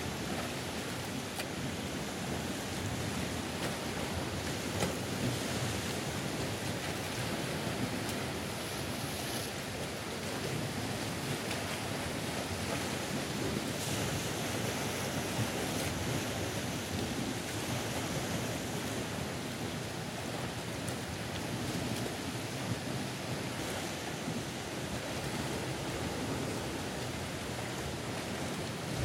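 Sea surf washing and breaking against a rocky shore: a steady, even wash of waves with slow swells in loudness, and some wind.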